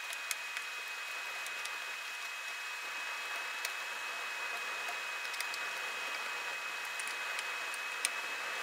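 Scattered small clicks of a small screwdriver turning screws into a graphics card, over a steady hiss with a thin steady high tone.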